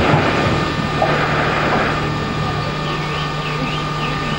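Steam locomotive simmering at rest: a steady low hum under a hiss that is strongest in the first two seconds, with no exhaust beats.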